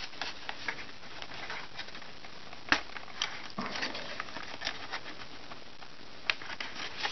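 Scattered light clicks and rustling from handling the small plastic tail wheel and the foam airframe of an RC plane while the wheel is pushed into its slot, with a sharper click about two and a half seconds in.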